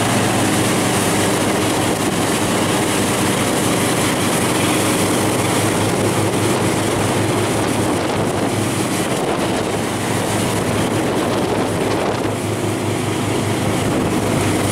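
Motorboat engine running steadily at towing speed under a constant rush of water and wind.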